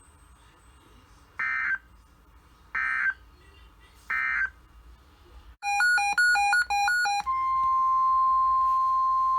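Emergency Alert System end-of-message code: three short buzzy data bursts about a second apart, marking the end of the previous alert. Then comes a quick run of electronic beeps jumping between pitches. About seven seconds in, the steady NOAA Weather Radio 1050 Hz warning alarm tone starts and holds, announcing a new warning.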